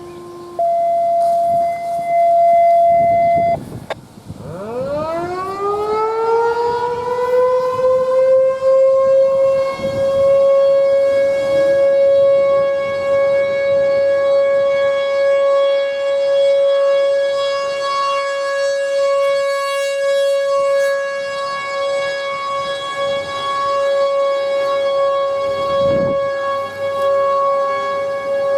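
A steady tone lasts about three seconds. Then an American Signal T-128 electromechanical outdoor warning siren winds up from a low pitch, climbing over about four seconds to full pitch. It then holds a loud, steady wail.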